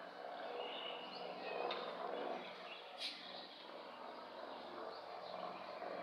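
Birds chirping in short high calls several times over a steady low hum, with a single sharp click about three seconds in.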